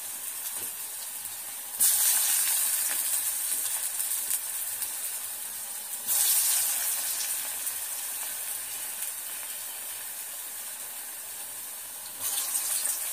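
Ghiya kofta balls deep-frying in hot oil in a kadai, a steady sizzle. It surges suddenly about two seconds in, again about six seconds in and once more near the end as fresh balls of the mixture are dropped into the oil, easing down after each.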